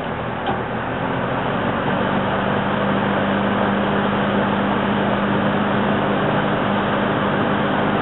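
Lakewood S-23 box fan's rotary switch clicks about half a second in, and the fan then speeds up to a louder, steady rush of air with a low motor hum.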